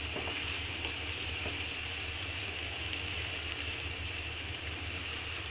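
Chopped spinach sizzling steadily in an uncovered pan, with a steady low hum underneath.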